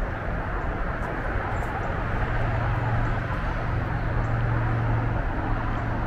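Steady low rumble of distant engine noise, with a low hum that grows louder through the middle and eases near the end.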